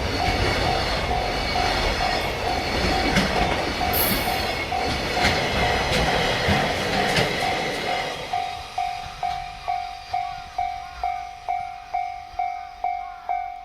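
A freight train of container wagons rolls past, its wheels clattering and knocking over the rail joints, while a level-crossing alarm rings steadily about twice a second. About eight seconds in, the last wagon passes and the train noise drops away, leaving the crossing alarm ringing on its own.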